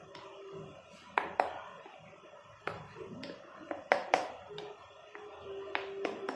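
A metal spoon stirring a thick spice paste in a stainless-steel bowl, with irregular clinks and scrapes of the spoon against the bowl, a quick cluster of them a little past halfway.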